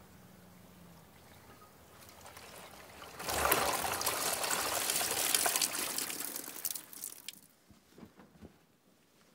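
Wet cloth being scrubbed and wrung by hand in a basin of soapy water. There is a splash about three seconds in, then sloshing and trickling water for a few seconds, fading to a few scattered drips near the end.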